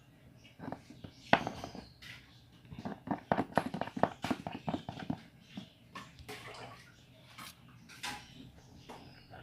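Homemade slime, made without activator, being worked, giving irregular sticky clicks and squelches.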